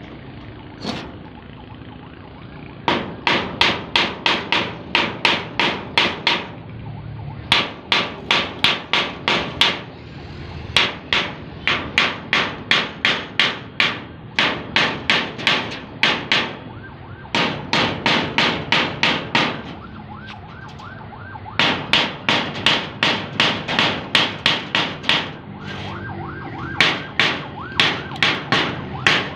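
Hammer striking metal in runs of quick, evenly spaced blows, about three a second, each run lasting a few seconds with short pauses between. A steady machine hum runs underneath.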